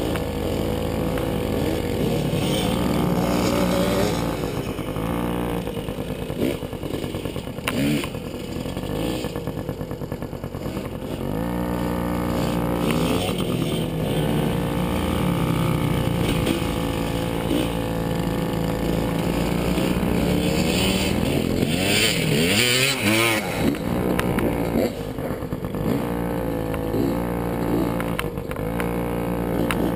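Small dirt bike engine running under a rider, its pitch rising and falling over and over as the throttle is worked, heard close up from a helmet-mounted camera. Rushing noise swells about two-thirds of the way through.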